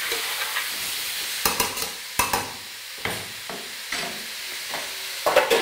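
Diced vegetables sizzling as they brown in a stainless steel saucepan, with several sharp scraping strokes of stirring against the pan about a second apart, the loudest near the end.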